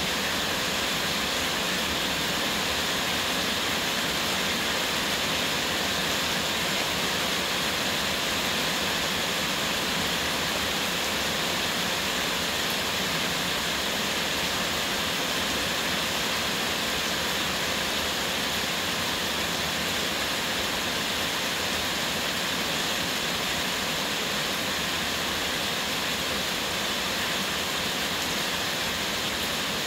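Heavy rain pouring down steadily as a dense, even hiss that does not let up.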